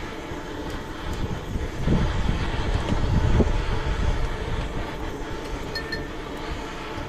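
Wind gusting against the microphone, a low rumble that swells about two seconds in and eases after about four seconds.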